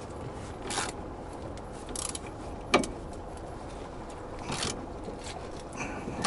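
A few separate metallic clicks and knocks from a wrench and parts as the brake caliper bracket bolts on a VAZ-2107 front brake are tightened, the sharpest about three seconds in.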